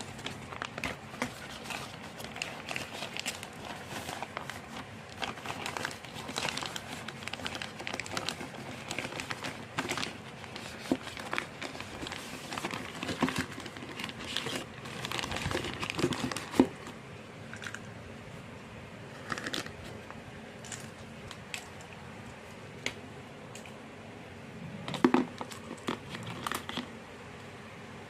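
Packaging being handled by hand: plastic crinkling with irregular small clicks and knocks. It is busy for the first half, thins out, then has a louder cluster of knocks near the end.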